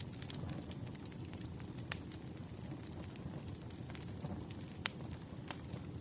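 Wood fire burning: a steady low rustle of flames with sharp crackling pops of the firewood, the two loudest about two and five seconds in.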